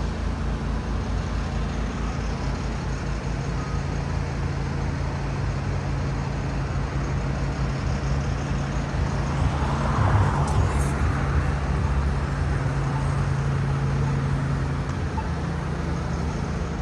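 City street traffic: a steady low engine hum from a running vehicle, with a vehicle passing by and swelling louder about ten seconds in.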